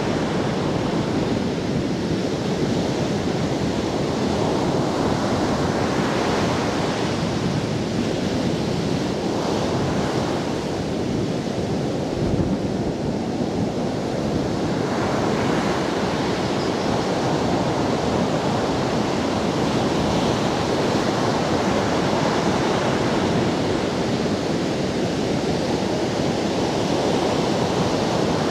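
Ocean surf breaking on a sandy beach: a continuous wash of waves and foam that swells and eases every few seconds, with some wind.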